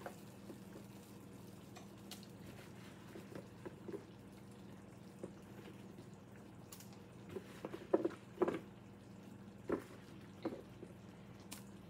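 Potato pieces being dropped into a skillet of sauce: a few soft wet plops and taps, mostly in the second half, over a low steady hum.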